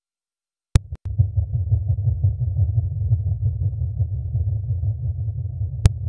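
Low, steady, crackly rumble, a 'sound of space' of the kind played in space-sound compilations. It starts about a second in after a sharp click, with another sharp click near the end.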